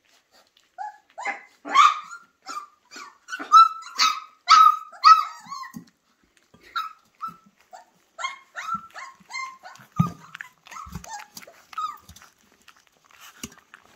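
Flat-coated retriever puppies, 24 days old, yipping and barking in a rapid series of short high calls, two or three a second, loudest in the first half and sparser later. Between the calls come small smacks and clicks of puppies eating from a steel feeding pan.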